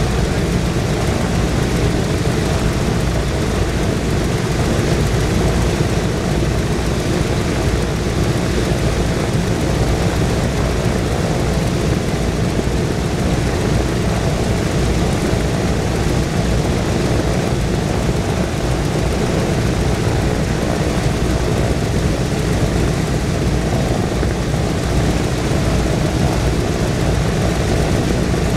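Four Wright R-1820 Cyclone nine-cylinder radial engines of a B-17 bomber running together at idle, a steady, unchanging rumble.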